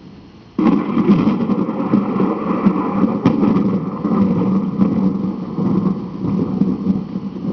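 Recorded thunder from a thunder-effects soundtrack: a sudden thunderclap about half a second in, then loud rumbling with a sharp crack near the middle.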